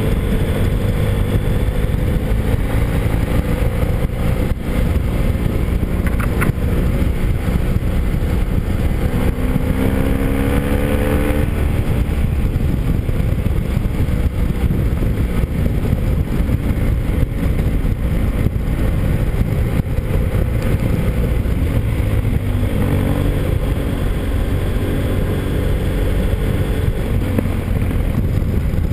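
Motorcycle engine running while under way, under heavy wind and road noise. About ten seconds in, the engine note climbs as the bike accelerates, then drops suddenly just before twelve seconds. It rises again a little after twenty seconds.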